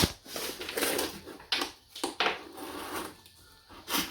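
Hands working a homemade cardboard puzzle box, pulling a piece out: a sharp click at the start, then a string of irregular rustles and scrapes.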